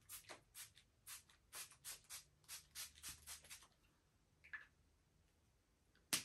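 Essence Keep It Perfect makeup fixing spray, a pump-action mist bottle, spritzed over the face in a rapid run of about fifteen short, faint sprays, about four a second, stopping after three and a half seconds. A single sharp click near the end.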